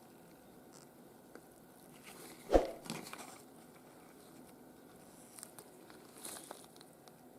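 A single sharp tap or knock about two and a half seconds in, followed by a few light clicks and faint rustles, as of small tools or watch parts being handled on a bench.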